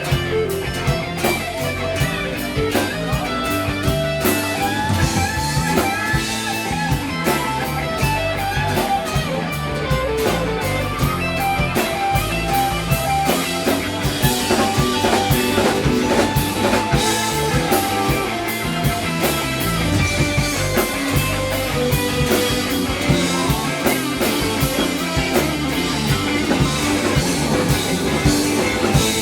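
Rock band playing a ballad live without singing: guitar over a steady drum kit beat.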